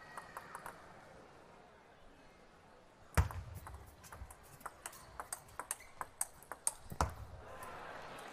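Table tennis rally: the celluloid-type ball clicks off paddles and table in quick succession, starting about three seconds in. Two heavier hits with a low thud stand out, the first as the rally begins and the second about four seconds later.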